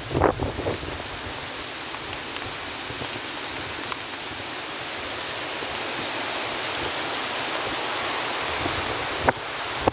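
Hurricane-driven surf washing over the dunes: a steady hiss of foaming seawater rushing across the sand, growing slightly louder toward the end. Wind buffets the microphone in the first second, and there are two sharp clicks, one about four seconds in and one near the end.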